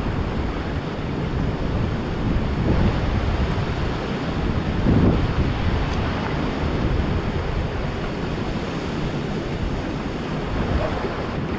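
Ocean surf washing steadily over a rocky shore, with wind buffeting the microphone.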